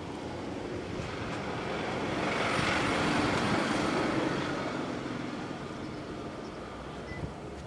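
A vehicle passing by out of sight, its noise swelling to a peak and fading away over a few seconds.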